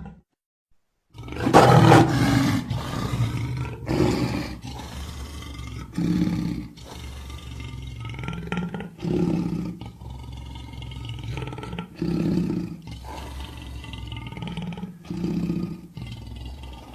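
Cartoon creature roaring and growling: a loud roar about a second and a half in, then a string of shorter roars every two to three seconds over continuous low growling.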